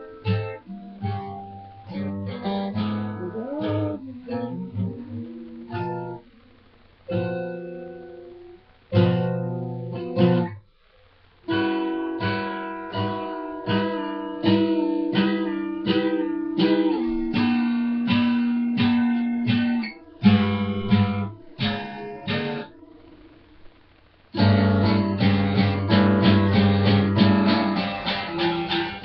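Guitar in an unconventional tuning, played in picked and strummed phrases with a few short pauses; near the end it breaks into fuller, steady strumming.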